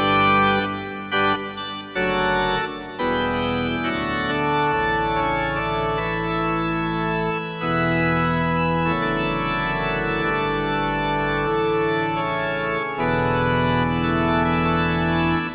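Nord Electro 6D stage keyboard playing an organ sound: a few short chord stabs, then sustained chords that change every second or two, fading away at the end.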